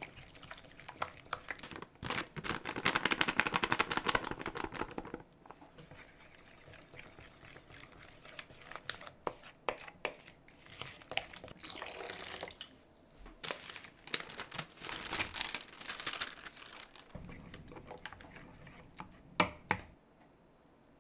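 A spoon stirring thin flour-and-water jeon batter in a glass bowl: wet swishing and scraping in bursts, the most vigorous for about three seconds near the start, with short clicks of the spoon against the bowl between them.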